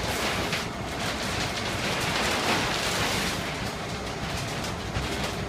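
Large clear plastic sea bulk container liner rustling and crackling as it is dragged across the floor and lifted by hand. Loudest about two to three seconds in.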